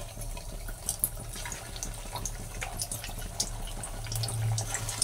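Hot oil sizzling and crackling in a kadhai as pieces of potato-and-wheat-flour dough deep-fry, with a low steady hum underneath that grows stronger near the end.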